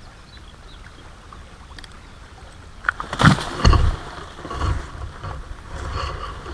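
Knocks, bumps and rustling from movement right against a chest-mounted action camera as the wearer bends over it, loudest in a cluster of thumps about three to four seconds in, over a low rumble.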